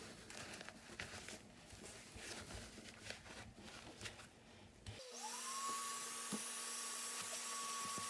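Handling noise, soft clicks and rustles, then about five seconds in a household vacuum cleaner switches on, its motor whine rising quickly to a steady pitch over a steady rush of air, drawing air through a face mask dusted with corn starch.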